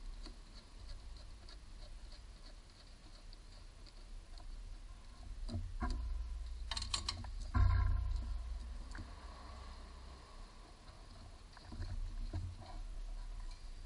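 Hands working the wiring and connectors on a starter motor: light handling noises and small clicks, with a cluster of clicks and a dull thump about seven seconds in.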